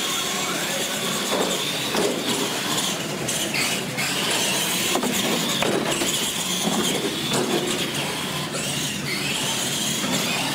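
Radio-controlled monster trucks racing on a concrete floor: motors and gear drivetrains whine steadily, with the pitch sweeping up and down as the throttle changes, over the rush of tyres.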